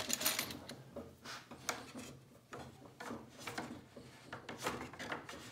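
Handling sounds of a steamed oak boat rib being bent and tied to wooden stringers: short, irregular rubbing and scraping strokes of wood on wood, loudest near the start.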